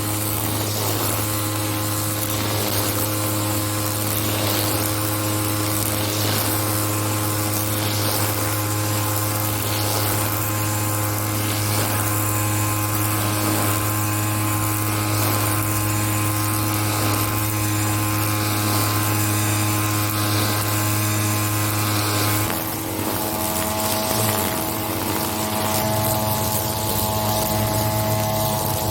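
Husqvarna 131R two-stroke brush cutter running steadily at working speed, its engine note shifting about three quarters of the way through.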